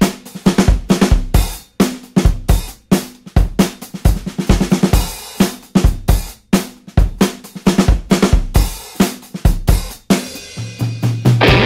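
Background rock music: a drum kit playing alone, with snare, bass drum, hi-hat and cymbal hits in a fast steady beat. Near the end a distorted electric guitar comes in.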